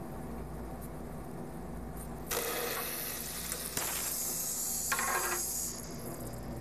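Compressed air from the house air line hissing through the Emulsiflex C3 homogenizer, blowing its rinse water out. The hiss starts suddenly a couple of seconds in over a low steady hum, shifts in tone twice and stops after about three and a half seconds.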